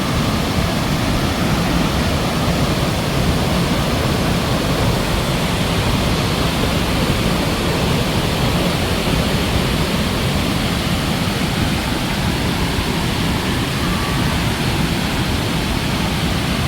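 Victoria Falls: a steady, loud wash of water plunging and crashing into the gorge, an even noise with no let-up.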